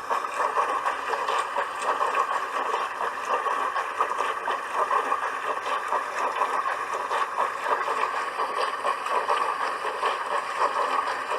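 Dishwasher running, with a steady rushing hiss of water spraying inside it.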